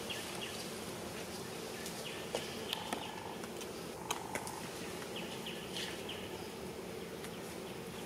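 Outdoor ambience of insects buzzing and chirping, with two short tones and a few faint sharp clicks around the middle.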